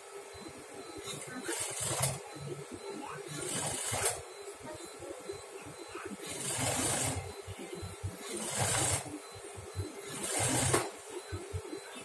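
Sewing machine stitching in short runs: five bursts about two seconds apart, each speeding up briefly and then stopping as the fabric is guided along the seam.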